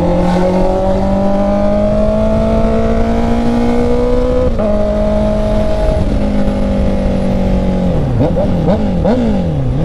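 Honda CB650R's inline-four engine under way, its revs climbing slowly for about four and a half seconds, then stepping and holding steady. Near the end the revs fall and rise several times in quick succession, over low wind rush.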